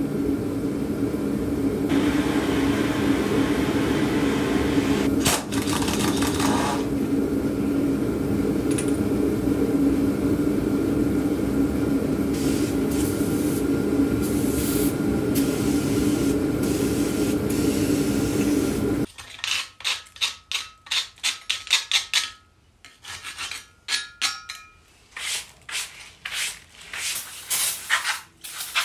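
Power-tool wire wheel spinning against a steel steering spindle: a steady whir with scratching as it scrubs off rust and grime. About 19 seconds in it cuts to short, separate hissing bursts of an aerosol spray on the spindle.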